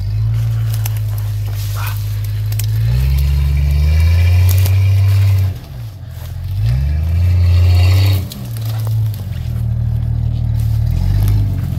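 An off-road vehicle's engine revving under load: the revs climb twice and drop back each time, with a hiss that rises along with the higher revs.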